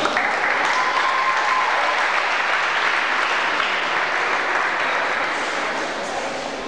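Audience applauding, easing off toward the end.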